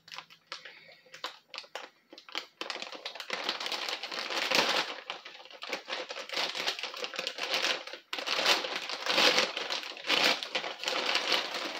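Packaging being handled and opened: a few light clicks and taps at first, then dense crinkling and rustling from about two and a half seconds in, with a brief pause about eight seconds in.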